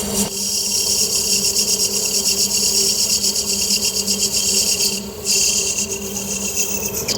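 Metal lathe running with a steady motor hum, while a tool rasps against the spinning metal workpiece in a fast, even rhythm; the rasping changes briefly about five seconds in.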